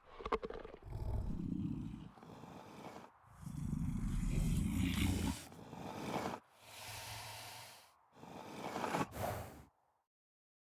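Pyroraptor creature sound effects built from big-cat growls such as a cougar's: about half a dozen low, breathy growls, each one to two seconds long, with short gaps between them.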